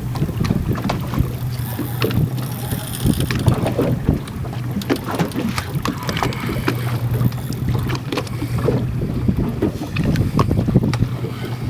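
Fishing boat's engine running steadily with a low hum, under wind noise on the microphone, with scattered clicks and knocks throughout.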